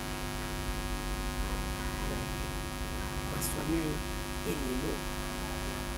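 Steady electrical hum with a dense stack of buzzing overtones in the audio chain, with a faint voice briefly about two-thirds of the way in.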